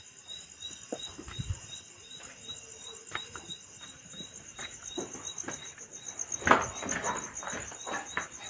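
Crickets chirping in a steady, rapidly pulsing high trill. Scattered clicks and rustles join in, louder from about six and a half seconds in.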